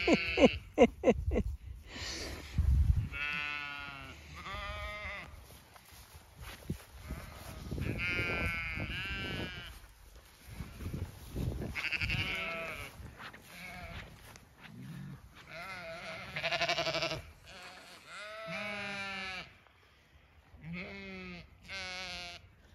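Zwartbles sheep bleating, about seven separate wavering bleats spread over twenty seconds. A quick run of short, loud calls comes in the first second.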